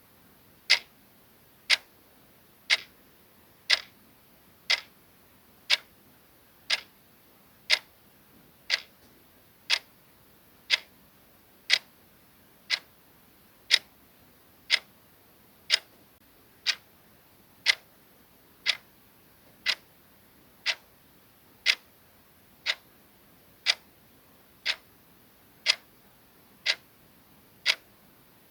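Clock ticking steadily, one short, sharp tick each second.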